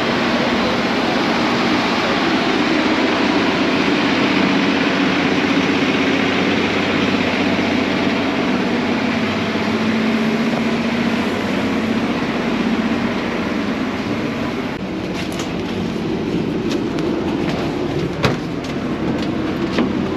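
Tour bus running, heard from inside: a steady engine drone with road and rattle noise, and a few sharp knocks or rattles near the end.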